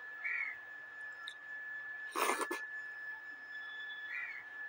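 Eating rice and dal by hand, close-miked: one short, loud eating noise about halfway through, with a faint brief chirp near the start and another near the end. A steady high-pitched whine runs underneath.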